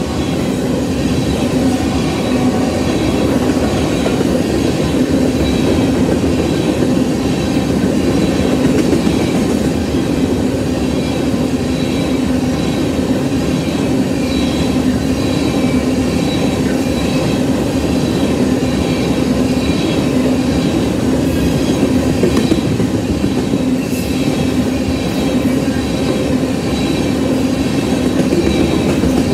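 Freight train of railroad tank cars rolling past close by: a steady rumble of steel wheels on the rails, with a steady tone running through it.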